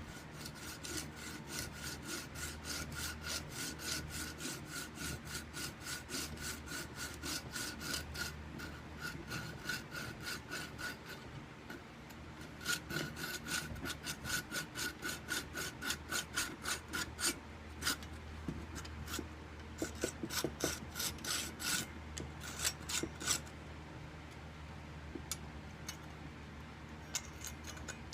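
Flush-cut hand saw cutting glued-in wooden slips off flush with the surface, in steady back-and-forth strokes about two a second, with a short pause about eleven seconds in.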